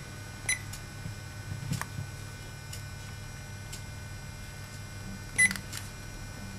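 UNI-T UT71E digital multimeter giving short key-press beeps: one about half a second in and a louder one a little after five seconds. Faint button clicks fall between the beeps.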